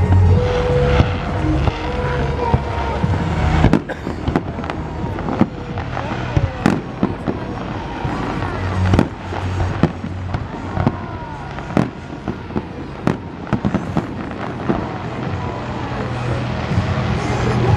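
Fireworks display: a rapid series of sharp bangs and crackles from exploding aerial shells. The show's loudspeaker music soundtrack plays under it; its heavy bass drops away about four seconds in and comes back strongly near the end.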